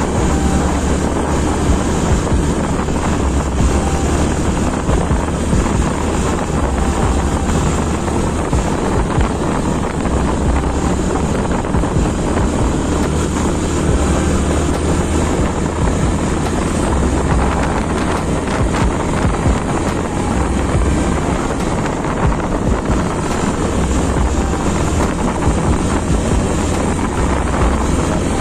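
Motorcycle cruising at a steady speed, its engine running under loud, even wind noise on the microphone.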